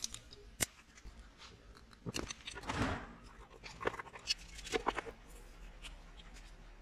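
Hands handling metal lawn mower drive parts: a sharp metal click under a second in, then scattered clicks, light knocks and rustling as a V-belt is worked around a pulley.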